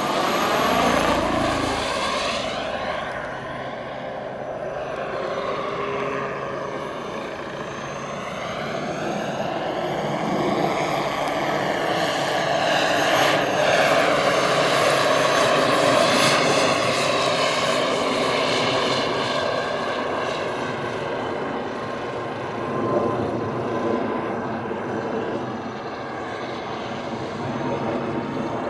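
Jakadofsky PRO X turbine and main rotor of a 1:5-scale Bell AH-1W Super Cobra model helicopter in flight: a steady high turbine whine over rotor noise. It swells as the helicopter makes a low pass about halfway through and fades as it climbs away near the end.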